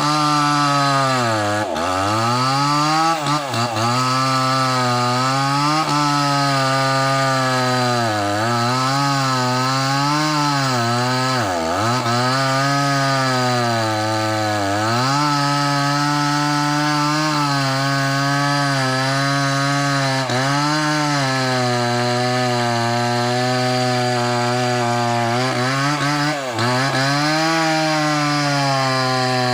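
Small two-stroke chainsaw cutting into a large mahogany log at high revs, its engine pitch sagging and recovering again and again as the chain bites under load.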